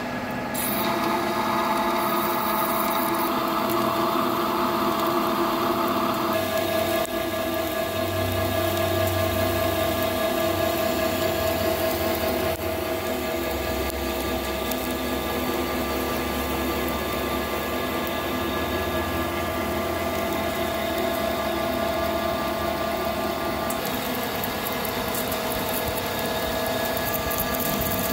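Hafco TM-1740G centre lathe running under power as a carbide tool rough-turns a long high-tensile steel bar under coolant: a steady machine hum of several held tones with cutting noise over it.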